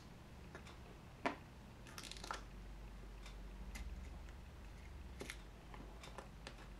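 Faint clicks of an iPhone 4S SIM tray being ejected with an eject pin and slid out. There is a sharp click about a second in, then a few lighter ticks, over a faint steady hum.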